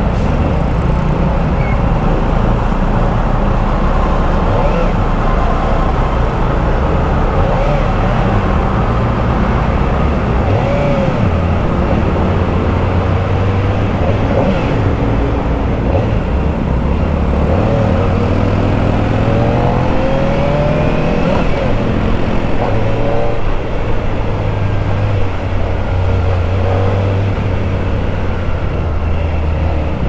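Onboard sound of a Kawasaki Ninja ZX-4RR's 399 cc inline-four on its stock exhaust, riding slowly in traffic, its revs rising and falling several times as it pulls away and eases off. The hum of surrounding scooters and motorcycles runs underneath.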